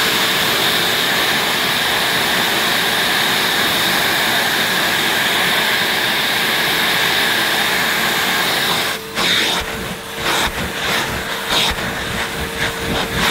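A vacuum cleaner running with a steady whine, its crevice nozzle sucking dust out of a cloth vacuum bag. From about nine seconds in, the sound dips and flutters repeatedly as the nozzle works over the fabric.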